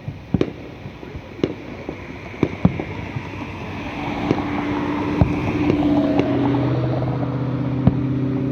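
Fireworks going off in the distance: irregular sharp bangs and pops, about a dozen. From about halfway through, a steady motor hum rises and holds underneath.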